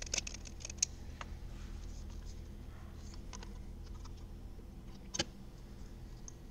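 Light metallic clicks and ticks of a socket wrench turning the screws of worm-drive hose clamps on aluminium radiator hose necks, tightening them to 21 inch-pounds. A sharper click comes about five seconds in, over a steady low hum.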